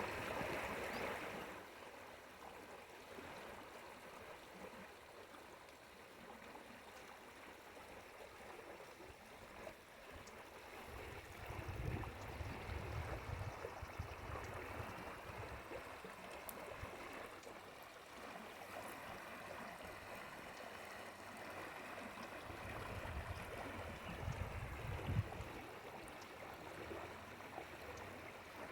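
Water of a small stream flowing and gurgling, with a steady rushing. A low rumble comes in twice, about midway and again near the end, with a short knock just before it fades the second time.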